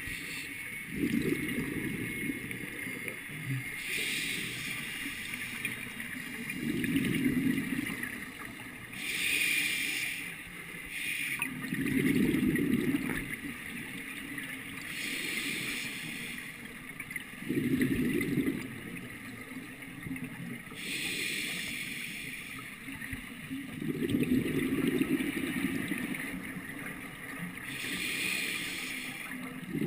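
Scuba diver breathing through an open-circuit regulator underwater. Each breath is a brief hiss on the inhale, then the low bubbling rumble of the exhale, repeating evenly about every five to six seconds.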